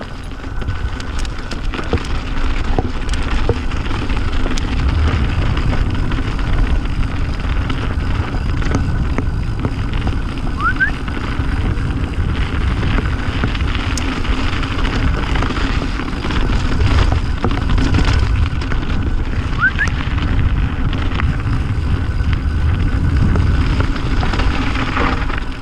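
Mountain bike being ridden on a dirt and rock trail: wind buffeting the camera microphone over the rolling noise of the tyres, with scattered clicks and rattles from the bike. Two brief rising squeaks come through, about ten and twenty seconds in.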